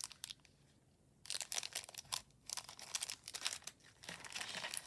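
Clear plastic bags crinkling as they are handled and picked out of a box, in irregular bursts starting about a second in.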